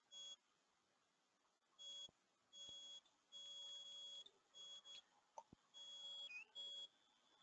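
Faint high-pitched beeping tone that switches on and off in irregular stretches, from a fraction of a second to about a second long, dipping in pitch once near the end, with a few soft clicks.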